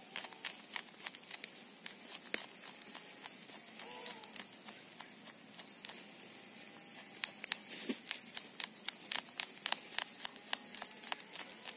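Knife scraping the scales off a small fish on a wooden tree stump: quick, scratchy strokes, thick at first, sparser in the middle, then thick again in the last few seconds.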